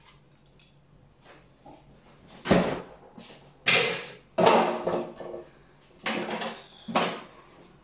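About five separate knocks and clatters as an electric hand mixer is handled and set down upright on the counter with its beaters out, and a chair is bumped.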